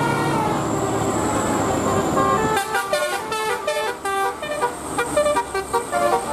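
Telolet multi-tone bus horn playing a tune. Held notes step from pitch to pitch at first, then about two and a half seconds in it breaks into a fast run of short, clipped notes.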